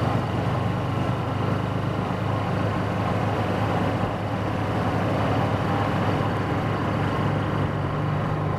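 Engine of a John Deere Gator utility vehicle running steadily while it drives along a gravel road, with a constant low drone.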